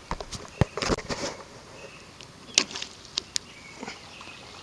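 Sharp clicks and knocks from hands working the pool pump's plumbing and valves, in two short clusters: one at the start and one about two and a half seconds in.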